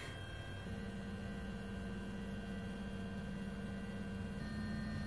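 Food 3D printer's stepper motors running as the syringe extruder traces a small triangle: a steady low tone that starts under a second in, with a fainter higher tone over it that stops near the end.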